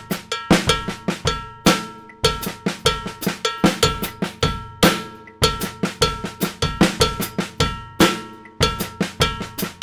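Drum kit playing a linear Latin-funk groove slowly at half-time: bass drum, snare drum and a ringing cowbell in a repeating pattern with accented snare backbeats. The groove is built on an inverted tumbao bass-drum figure.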